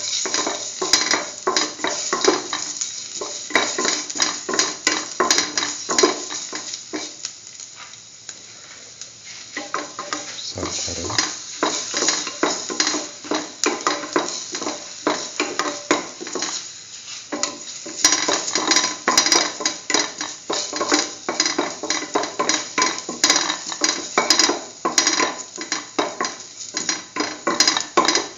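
A spatula scraping and tapping against a stainless steel pan as pieces of ginger are stirred in hot oil, over a light sizzle. The stirring eases off briefly about eight seconds in and again around seventeen seconds.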